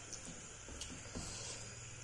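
Fingers mixing wet rice with fish curry on a steel plate: faint soft handling sounds with a few small clicks.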